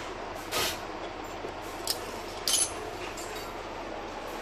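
Steel open-end spanner clinking against a nut and metal bracket as a bolt is tightened: three short metallic clinks, about half a second, two seconds and two and a half seconds in, the last one ringing briefly, over a steady background rumble.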